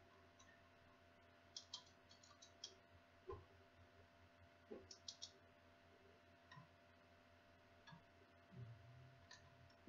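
Faint computer keyboard typing: a quick run of key clicks about a second and a half in, another around five seconds, and a few scattered single clicks, over a faint steady hum.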